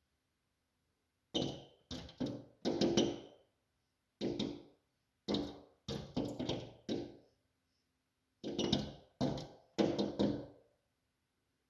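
A bird pecking at window glass: about fifteen sharp taps in irregular bursts of two to four, with short pauses between the bursts.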